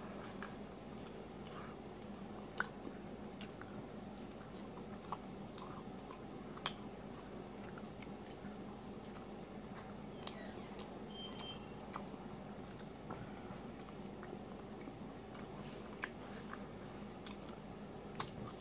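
A person chewing and biting a soft tortilla breakfast wrap close to the microphone: faint wet mouth clicks and smacks, a few of them sharper, over a faint steady hum.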